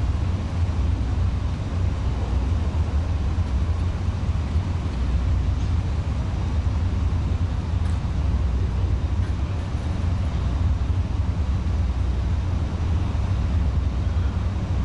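Steady low drone of a car ferry's engines while under way, over an even hiss of wind and water.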